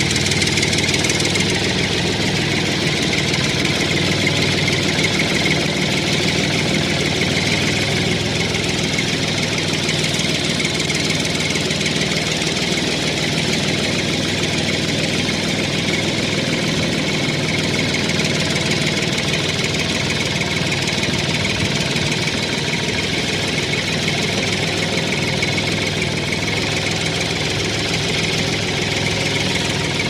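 Tractor engine idling steadily with an even, rapid knock.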